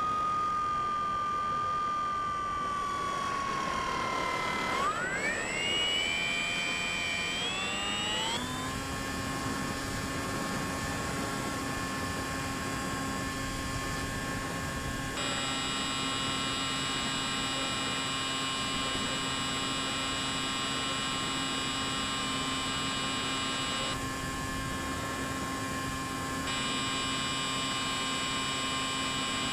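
Electric motor of a Bixler 3 RC plane whining in flight. Its pitch sinks a little, climbs steeply about five seconds in as the throttle is opened, then holds steady.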